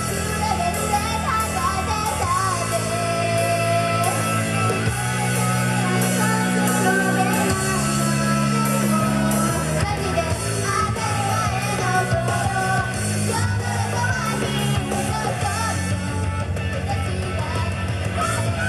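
A Japanese female idol group singing a J-pop song live over loud rock backing music, with bass and electric guitar. The singing runs over a bass line that changes note every second or two.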